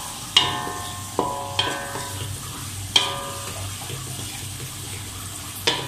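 A spatula stirring aromatics and sauce in a wok: a low sizzle of frying in a little oil, broken by about five sharp, ringing clinks as the spatula strikes the pan.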